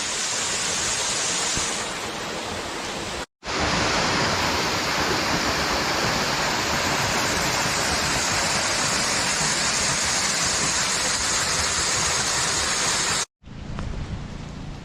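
Silverband Falls' water falling into its pool: a steady rushing noise, cut off abruptly twice where clips change, with a quieter rush after the second cut near the end.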